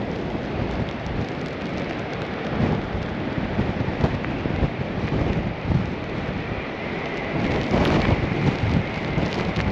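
Strong wind buffeting the camera microphone: a constant rushing noise, heaviest in the low end, swelling with a gust near the end.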